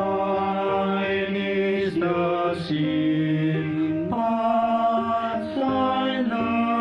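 Small group of men's voices singing a slow choral passage in harmony, holding chords that change every second or two.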